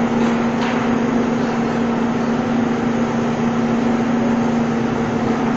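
Diesel engine of a mobile truck crane running steadily under load while it hoists a heavy girder, a continuous drone with a steady hum.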